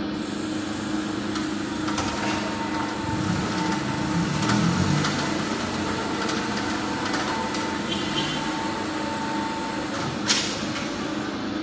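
Powered roller conveyor running, carrying a heavily loaded pallet of test weights along its rollers with a steady mechanical hum and a faint whine. A single sharp knock comes near the end, as the pallet comes to rest.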